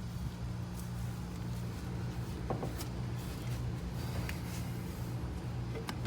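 Steady low hum with a few faint clicks and taps.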